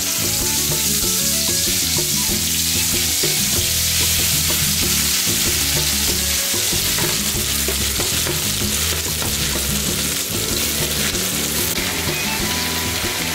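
Curry paste hitting hot oil in an aluminium wok and sizzling, starting suddenly and then frying steadily while a metal ladle stirs it. Background music plays low underneath.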